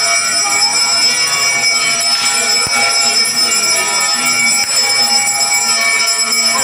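Small brass hand bell (ghanta) rung continuously during an aarti, a steady shimmering ringing with no breaks.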